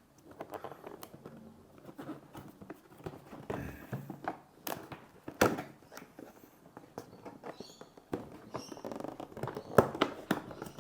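Cardboard box and packaging being handled and opened: irregular rustling and scraping with sharp clicks and taps, the loudest knocks about five and a half and ten seconds in.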